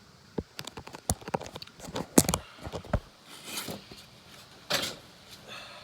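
Irregular small clicks and knocks with a couple of brief rubbing swishes: hands handling and fitting car suspension parts and rubber spring isolators.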